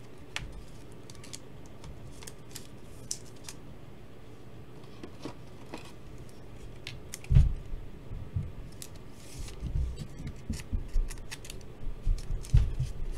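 Trading cards and a clear plastic top loader being handled: scattered small clicks and scrapes of card stock and rigid plastic, with a few louder soft knocks against the table in the second half.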